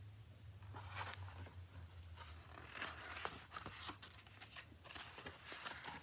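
Pages of a picture book being turned by hand, the paper rustling in a series of short crinkly bursts starting about a second in.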